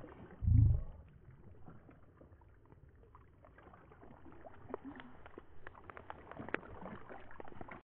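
Small waves lapping and splashing against the lake shore, a run of light irregular splashes that grows busier in the second half. A gust of wind buffets the microphone briefly about half a second in, and the sound cuts off suddenly just before the end.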